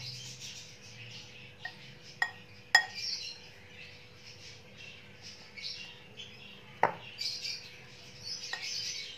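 A metal spoon stirring dry gram flour with chopped onion and spices in a glass bowl: soft scraping, with a few sharp clinks of the spoon against the glass.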